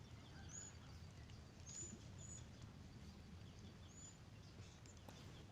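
Near-silent ambience with a bird giving short, high chirps every second or so over a faint low rumble.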